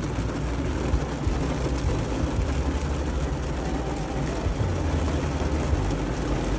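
Heavy rain on a car's roof and windows, heard from inside the cabin as a steady hiss over the car's low rumble.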